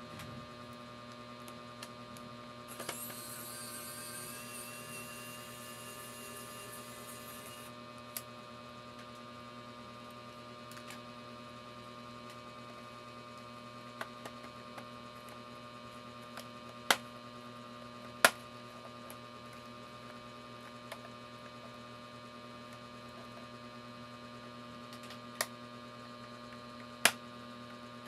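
Steady electrical mains hum, with a few sharp clicks scattered through. About three seconds in, a thin whine rises slightly in pitch and holds for about five seconds before stopping.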